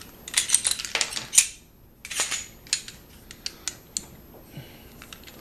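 Glock pistol being handled, its metal and polymer parts giving a dense run of sharp clicks and rattles in the first second and a half, another burst about two seconds in, then a few separate clicks.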